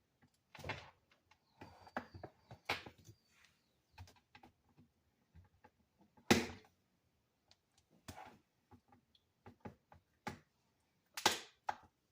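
Scattered clicks and knocks of a small coffee maker being handled, its switch and plug worked while it will not come on, with two louder knocks about six seconds in and near the end.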